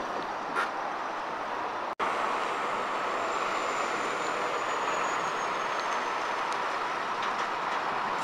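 Articulated lorries turning slowly through a junction, close by: a steady rumble of tyre and engine noise as a tri-axle curtain-sider trailer sweeps past. The audio cuts out for an instant about two seconds in.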